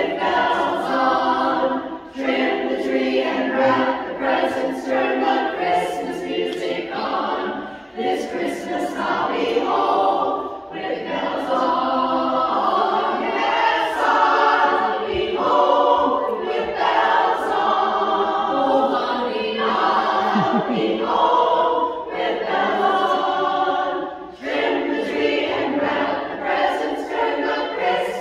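Barbershop chorus of mostly women's voices singing a Christmas song in close harmony. The singing runs in phrases of several seconds, with short breaks between them.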